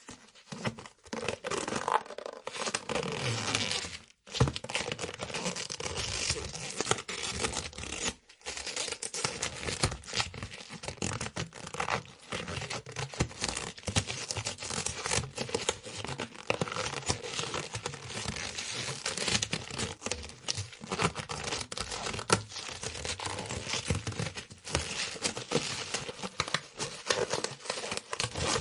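Rubber being stretched and pulled: a dense run of crackling, creaking friction, broken by short gaps about four and eight seconds in.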